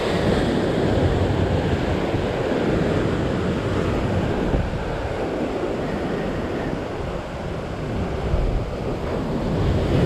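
Wind buffeting the microphone over the steady wash of surf breaking on sea rocks.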